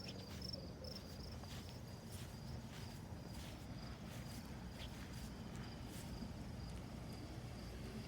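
Crickets chirping, a steady run of high-pitched pulses a few times a second, over a low steady rumble, with a few faint clicks or rustles.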